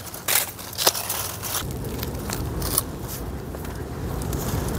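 Crackling and rustling of squash vines and leaves, with several sharp snaps or clicks, as squash are picked by hand.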